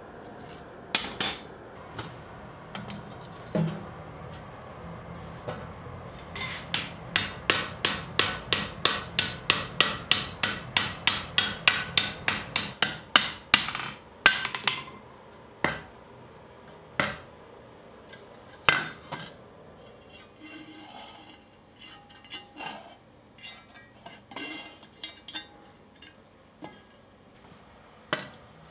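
Hand hammer striking the hot edge of a steel disc over a round stake on the anvil, raising the rim of a frying pan: a run of rapid blows, about four a second, then slower single strikes and quieter scraping and clicking as the disc is turned. It opens with the steady noise of the forge fire and a few knocks.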